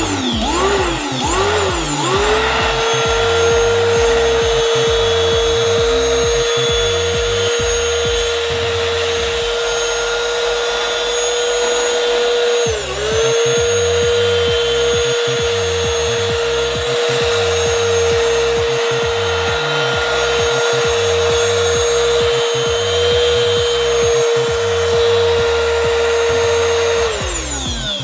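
AFBEST 7.2 V cordless handheld vacuum cleaner running while it sucks up small polystyrene beads: its motor spins up with a rising whine, runs at a steady high pitch that dips briefly about halfway through, then winds down with a falling pitch as it is switched off near the end.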